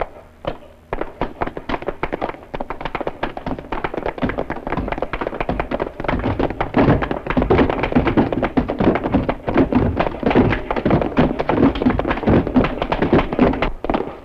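Many soldiers' boots running and stamping on a wooden gym floor, a fast dense patter of knocks and thuds that grows louder and heavier about six seconds in.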